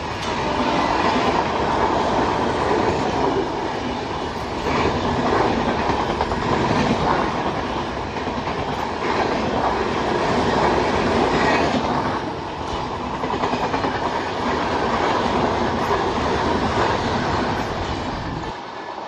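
Coaches of an express passenger train passing at speed close to the track, a steady rush of wheel and air noise with the clickety-clack of wheels over rail joints. The sound falls away near the end as the last coach goes by.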